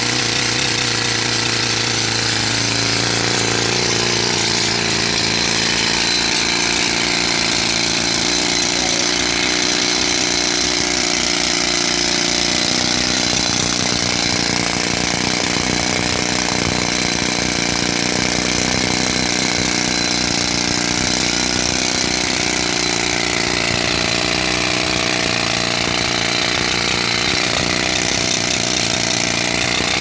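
Pneumatic jackhammer rock drill hammering continuously into hard rock, a loud, steady, rapid clatter without a break.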